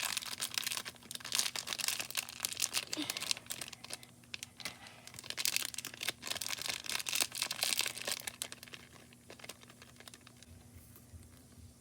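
Slime being squeezed and worked by hand, a dense crackling and crinkling in two stretches, the second ending about eight seconds in.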